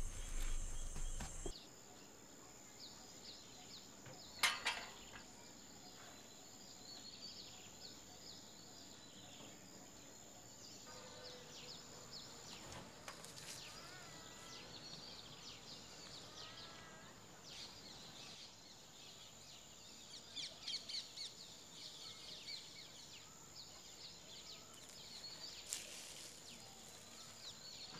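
Quiet rural outdoor ambience: scattered bird chirps and warbling calls over a steady high-pitched insect whine, with one brief sharp sound about four and a half seconds in.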